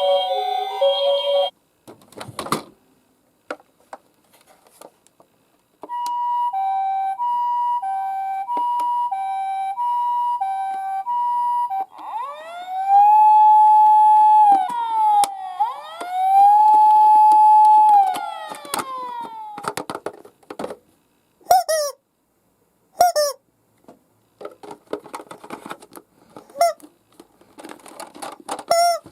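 Emergency-vehicle siren effects: a two-tone hi-lo siren alternating steadily for several seconds, then a wailing siren that rises, holds and falls twice. After that come scattered clicks and rattles, typical of die-cast toy ambulances rolling down a plastic slope, with a few short siren chirps.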